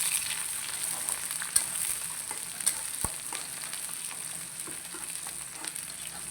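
Chopped onion, garlic, bay leaves and panch phoron sizzling in hot oil in a kadai: the tempering for a dal frying, with scattered clicks of a spoon stirring. The sizzle eases off slightly over the few seconds.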